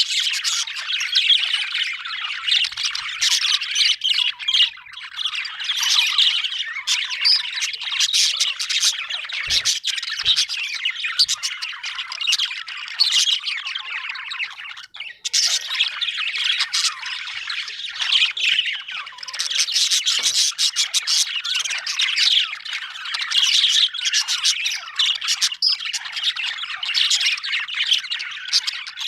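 A flock of budgerigars chattering and chirping continuously, many overlapping warbles, squawks and sharp clicking notes. The chatter dips briefly about halfway through, then picks up again.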